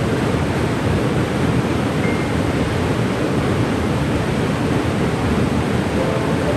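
Cane River Falls waterfall rushing: a steady, even roar of falling water, with a few faint short tones above it.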